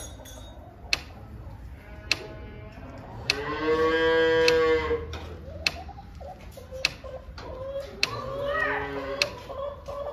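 A cow moos once, a loud call lasting nearly two seconds. Fainter wavering animal calls follow in the second half. Sharp ticks sound roughly once a second throughout.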